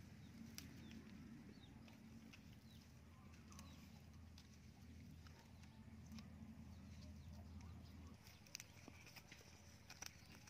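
Near silence: a faint low hum that stops about eight seconds in, with a few faint clicks from bamboo poles being handled and tied, and some faint chirps.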